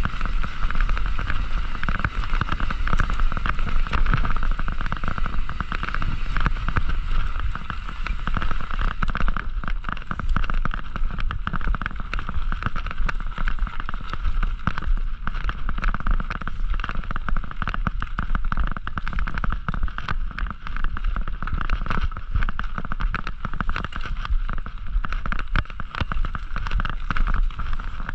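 Mountain bike ridden over a dirt trail: continuous tyre and rolling noise full of small rattles and knocks from the bike, with wind buffeting the microphone as a heavy low rumble.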